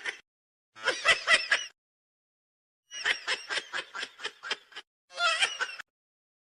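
Laughter in three short bursts of rapid rhythmic pulses, about four or five a second.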